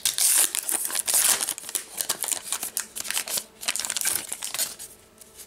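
Foil wrapper of a Topps Heritage baseball card pack being torn open and crinkled as the cards are pulled out. It makes a dense crackling that dies away near the end.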